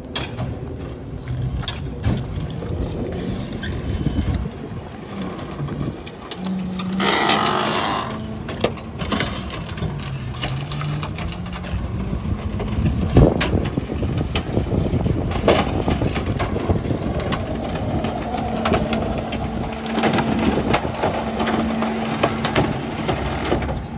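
Autocar ACX rear-loader garbage truck's diesel engine running, with a short air hiss about seven seconds in and the engine pitch dipping and rising after it. From about thirteen seconds sharp knocks and clanks of bulk items and wood being thrown into the rear hopper, and near the end the engine holds a steadier, higher tone.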